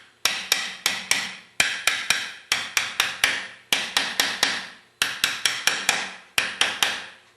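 Light hammer taps on a snow plow pump's reservoir can, coming in quick runs of three to five taps with short pauses between, to seat the can down over its O-ring.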